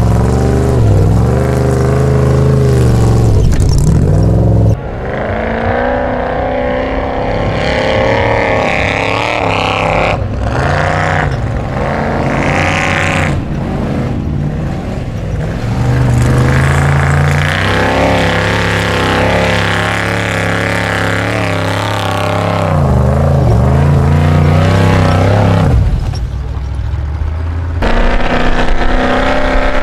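Willys CJ5 off-road competition car's engine revving hard under full load, its pitch rising and falling again and again as it climbs a loose gravel slope.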